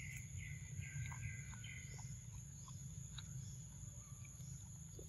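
Faint forest ambience: a steady high-pitched insect drone, and a bird chirping a quick run of short notes in the first two seconds. Under it are a low steady rumble and a few soft scattered clicks.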